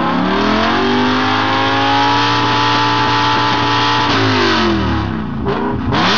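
BMW E60 M5's V10 engine through an Evosport aftermarket exhaust, revving up and holding high revs for about three seconds, then dropping back, with a quick blip and another rev rising near the end.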